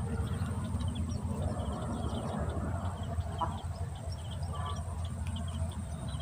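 Wind rumbling on the microphone, with small birds chirping over and over in the background.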